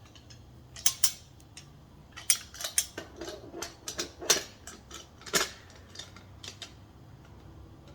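Metal tool parts clinking and knocking against the steel frame of a manual tire changer as a ratchet is fitted into place, a run of irregular sharp clicks and clanks, the loudest about four and five seconds in.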